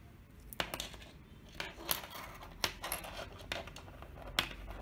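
Irregular clicks and clinks of small hard parts being handled, the sharpest one near the end.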